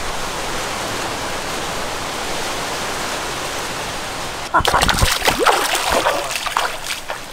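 River water flowing steadily; about four and a half seconds in it changes abruptly to irregular splashing in the water.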